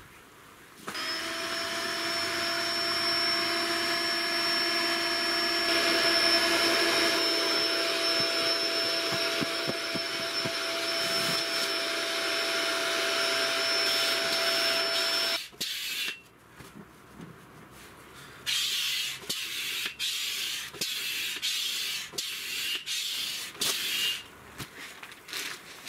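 Electric air pump running steadily with a whine as it inflates an air mattress, cutting off suddenly about 15 seconds in. After a short lull come irregular bursts of rustling as bedding is handled on the mattress.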